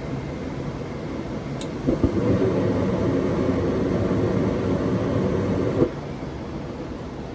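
Gas furnace running with a steady hum. A click about a second and a half in is followed by the burners lighting with a louder rush that cuts off abruptly about four seconds later. This short burn is typical of a dirty flame sensor failing to prove flame.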